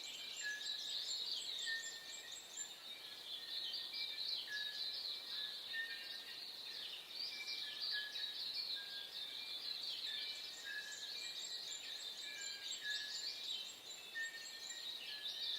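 Dawn chorus of many small birds chirping and twittering without a break, with short lower whistled notes repeated about once a second beneath.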